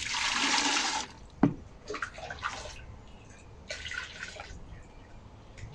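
Liquid soap base being poured: a steady pour for about the first second, then smaller splashes and drips off and on.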